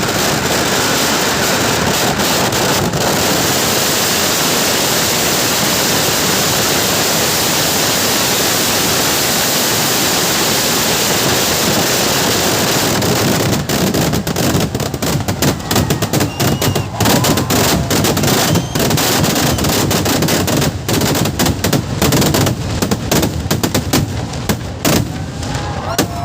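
Kerala temple fireworks barrage: firecrackers going off so thickly that for about half the time they merge into one continuous roar. After that it breaks up into rapid, separate bangs fired in quick succession.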